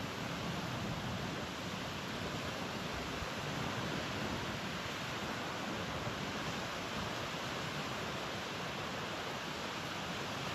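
Steady wash of ocean surf, the waves running somewhat high from a typhoon's swell.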